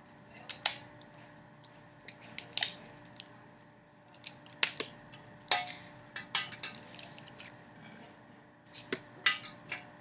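Plastic mechanical pencils being handled and taken apart, with irregular sharp clicks and clacks of the pencil parts, some knocking against a glass desktop.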